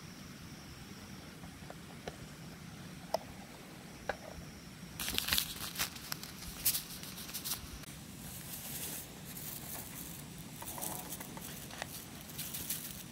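A paper sachet crinkling and being torn open by hand, in irregular crackly bursts from about five seconds in, after a few light clicks.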